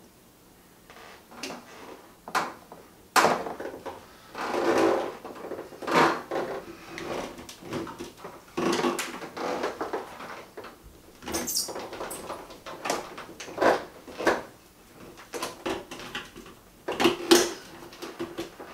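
Plastic drain hoses being handled and pushed into a wall-mounted washer outlet box: irregular knocks, clicks and scraping rustles, with a brief high hiss about eleven seconds in.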